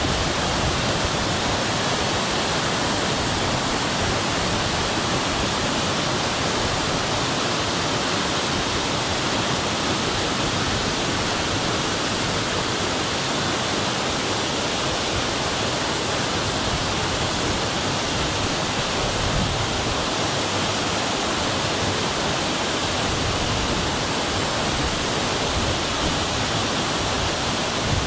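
Waterfall cascading down a rock cliff straight into the sea, heard close up as a steady, even rush of falling and splashing water.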